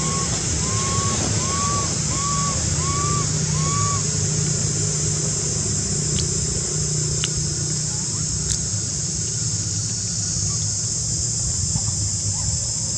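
Steady outdoor background of a high hiss and a low rumble, with a run of short rise-and-fall calls, about two a second, in the first four seconds.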